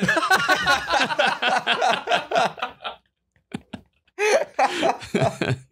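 Two men laughing: a long run of laughter, a pause of about a second, then more short laughs.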